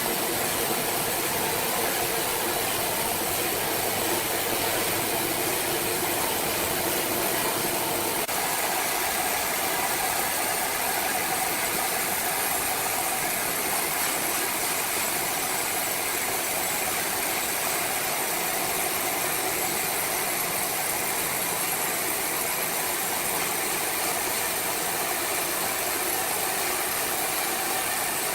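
Sawmill machinery running steadily: a continuous mechanical noise with a hum of several held tones, which shifts in pitch about eight seconds in.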